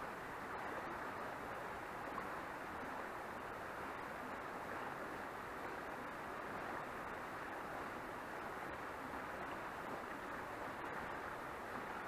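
A shallow mountain stream rushing steadily over rocks, an even, unbroken rush of water.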